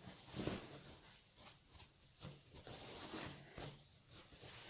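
Printed fabric cushion cover rustling and brushing in irregular soft strokes as it is handled, its turned corners pushed through and the cloth smoothed flat.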